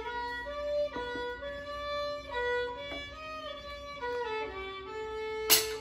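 Background music: a slow instrumental melody of held notes stepping up and down in pitch. A short noisy burst comes near the end.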